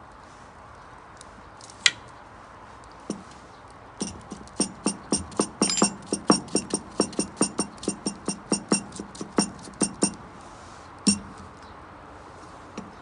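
Knife chopping: single knocks about two and three seconds in, then a quick, regular run of strikes, about four a second, for some six seconds, and one last knock near the end.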